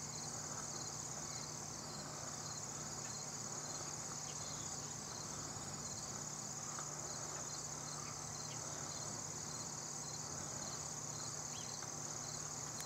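A steady, high-pitched insect chorus trilling without a break, with a low steady hum beneath it and a few faint, short bird chirps.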